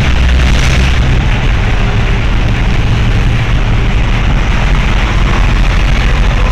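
Loud, steady rumble of a moving vehicle, engine and road noise heavy in the low end, with wind buffeting the microphone.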